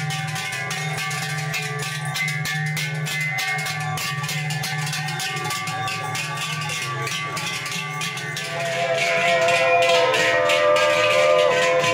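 Large cowbells on a passing herd of cows clanging continuously, many bells at once, their tones overlapping; the ringing grows louder about eight and a half seconds in.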